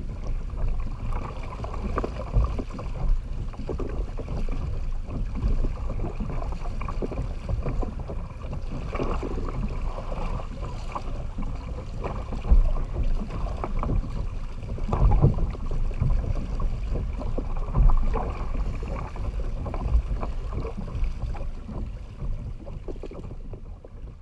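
Sea water sloshing and slapping against a kayak hull in choppy water, with irregular splashes and wind buffeting the microphone; it gets quieter near the end.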